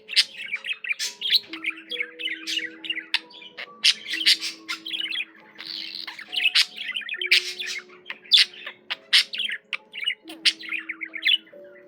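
Pet budgerigar warbling: a fast, continuous stream of chirps, clicks and chatter. Underneath runs a soft sequence of held low notes that step from pitch to pitch.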